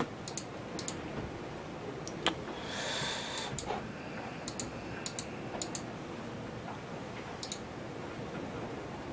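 Computer mouse buttons clicking, a series of short sharp clicks at irregular intervals, with a brief scratchy rustle about three seconds in.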